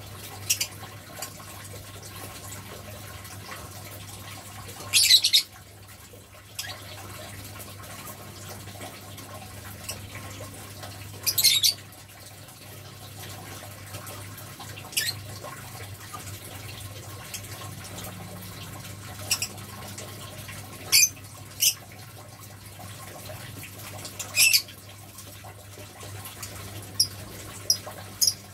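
A caged civet hissing in short, sharp bursts every few seconds, the bursts coming quicker near the end, over a steady low hum.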